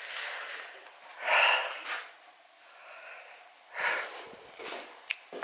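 A person breathing close to the microphone: two short breathy puffs, about a second in and near four seconds, with a short sharp click near the end.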